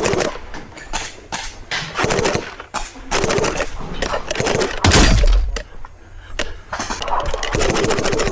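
Rapid automatic gunfire in several bursts, each a fast run of sharp reports, with the loudest and deepest burst about five seconds in.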